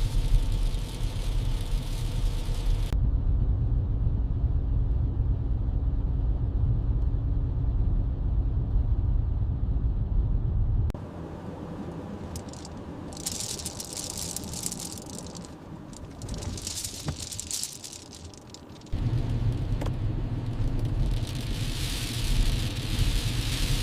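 A car driving on the road: a steady low rumble of engine and tyres with some rattle, cut between shots. Through a quieter stretch in the middle the rumble drops away and bursts of hiss come and go, then the driving rumble returns.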